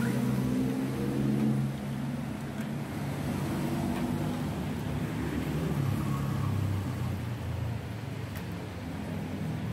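Street traffic: car and pickup engines running as they pass close by on the road. A steady engine hum stops about two seconds in, and another engine note swells and drops away as a vehicle goes by around six seconds in.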